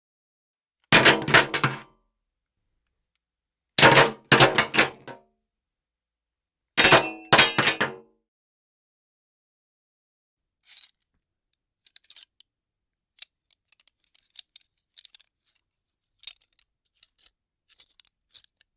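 Metallic weapon-handling sound effects: three short bursts of clattering clicks and clinks about three seconds apart, then faint scattered ticks.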